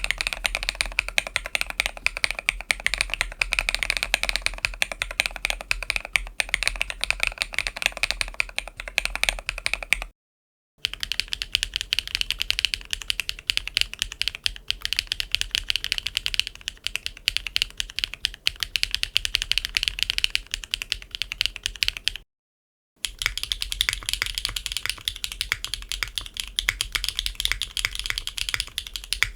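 Continuous typing on mechanical keyboards fitted with HMX Lanikai linear switches, in three takes split by two brief silences; the first take sounds fuller and deeper, the later two brighter and clackier.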